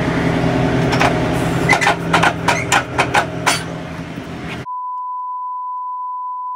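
Semi truck's diesel engine idling, with a quick run of sharp clicks and knocks, about four or five a second, from about two to three and a half seconds in. Near the end it cuts off suddenly to a steady high-pitched test-card beep.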